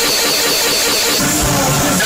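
Loud, distorted electronic siren sound: steady high tones over a fast pulsing pattern, the highest tone stopping about a second in.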